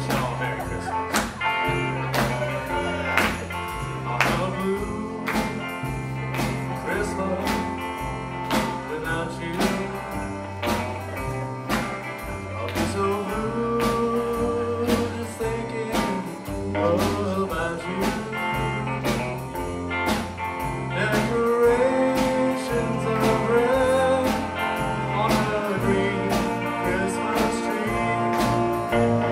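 Live rockabilly band playing with a steady beat: electric guitars and drums over an upright bass that steps from note to note, with a saxophone and trombone section carrying held melody notes.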